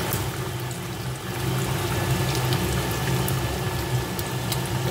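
Hot oil bubbling and crackling in a frying pan as pieces of fried tilapia are lifted out of it, with scattered sharp little pops over a steady low hum.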